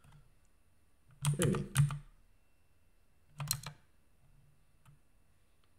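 Typing on a computer keyboard in two short bursts of a few keystrokes, one about a second in and one around three and a half seconds, with a couple of faint single key taps near the end.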